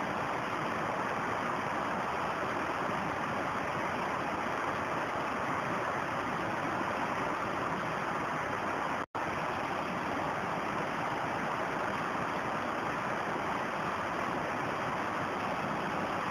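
Shallow rocky stream running steadily, a continuous rush of water over stones. The sound cuts out for an instant about nine seconds in.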